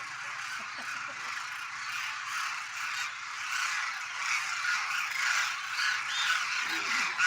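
A large flock of demoiselle cranes calling at once, a dense, continuous chorus of many overlapping calls.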